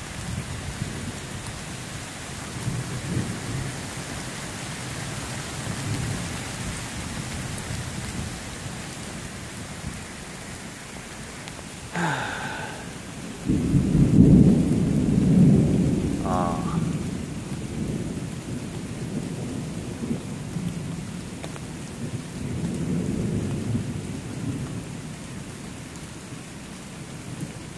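Steady rain with low rolling thunder. A loud peal of thunder comes about halfway through and rumbles on for several seconds, and a smaller rumble follows near the end.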